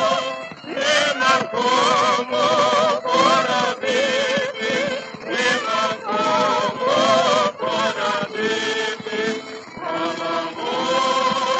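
Male vocal quartet singing a Ukrainian folk song together with orchestra accompaniment, the voices held with a wavering vibrato, played from a 1930 Columbia 78 rpm record.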